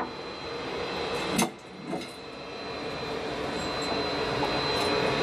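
Steady rush of cabin air with a thin high whine, broken by a sharp click at the start, a louder metallic clunk about a second and a half in and a softer knock just after: the spacecraft docking hatch being unlatched and worked open by hand.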